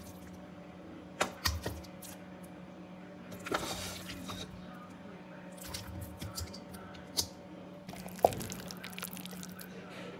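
Spatula scraping and clacking against a metal pan as cooked beef filling is stirred, several sharp knocks scattered through it, over a steady low hum.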